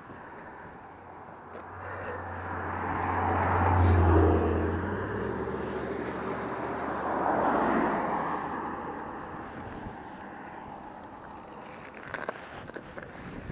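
Road traffic passing: a vehicle with a deep engine hum goes by about four seconds in, and a second vehicle follows a few seconds later. Each brings a rise and fade of tyre noise.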